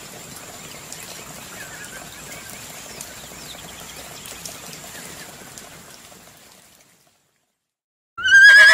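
Light splashing and dripping of water as plastic toy animals are handled in a tub of water, with a few faint chirps. It fades out, and after a short silence a loud horse whinny sound effect starts near the end.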